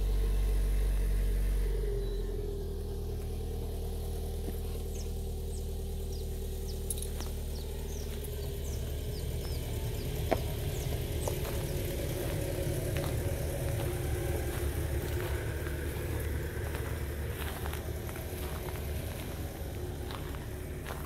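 An engine running steadily at a low, even hum, louder for the first couple of seconds before settling. Faint short high chirps and a few clicks come through over it in the middle.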